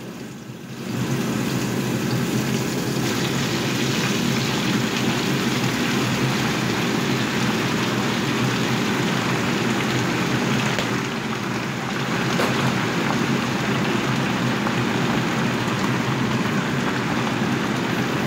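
Oil sizzling in a frying pan over a steady hum from the kitchen range hood fan. Leafy greens are tipped into the pan about ten seconds in.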